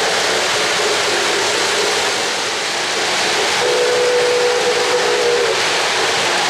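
O-gauge model trains running on three-rail track, a steady rolling noise, with a model locomotive's steam whistle sounding once for about two seconds past the middle.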